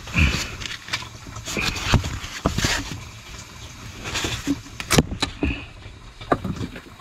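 Rustling and scattered sharp clicks and knocks of hands working on copper pipework among foam pipe lagging and fibreglass insulation, handling a braided flexi hose; the sharpest knock comes about five seconds in.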